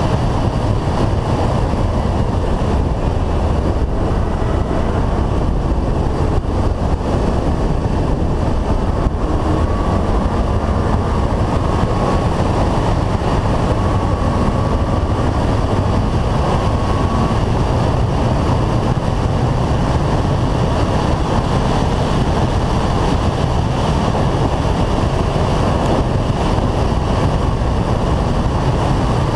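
Steady wind rush and buffeting on a roof-mounted action camera on a Renault Clio 182 track car at speed, with a low rumble of road and engine noise underneath.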